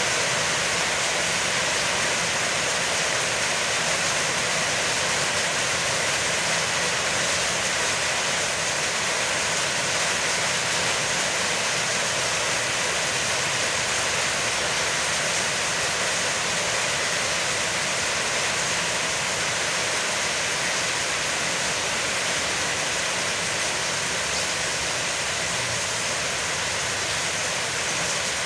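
Heavy rain falling: a steady, even hiss that holds without let-up.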